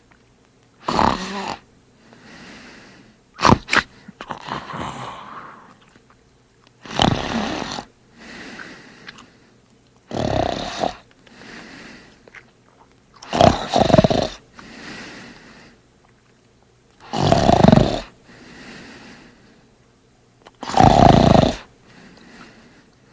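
A man snoring loudly: a loud snore about every three and a half seconds, with softer breathing between. About three seconds in comes a pair of short, sharp snorts.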